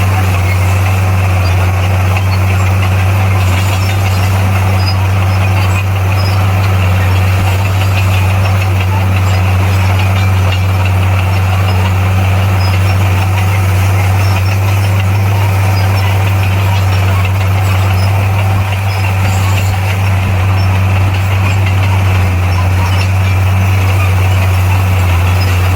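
Bulldozer's diesel engine running at a steady, deep drone with no change in pitch or load.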